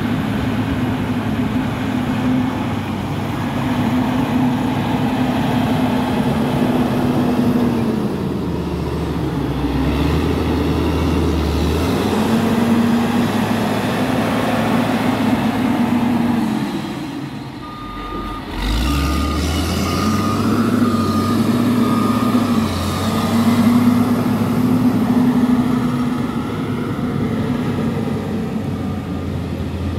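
Caterpillar 140K motor grader's diesel engine working under load while spreading asphalt mix; the revs drop and pick back up twice as the machine changes direction. A reversing alarm beeps steadily for several seconds a little past the middle.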